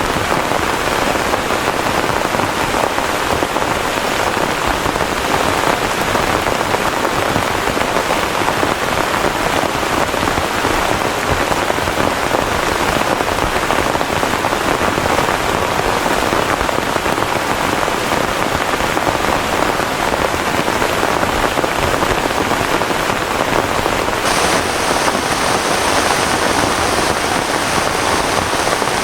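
Heavy rain falling hard and steadily, a dense, even hiss of downpour without a break.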